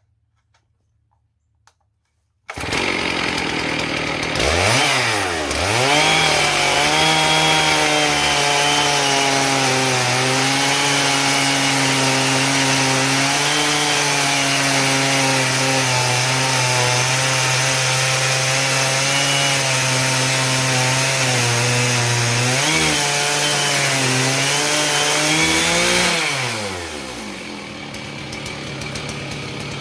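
Chainsaw on a homemade chainsaw mill cutting in suddenly about two and a half seconds in, revving up and then running at steady high revs as it rips lengthwise through a log. About 26 seconds in it throttles down, and it revs back up near the end.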